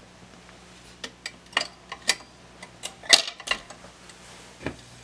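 RCA RP190 automatic 45 rpm record changer cycling: a run of irregular mechanical clicks and clunks as the tonearm swings in over the record, the loudest about three seconds in, over a faint low hum.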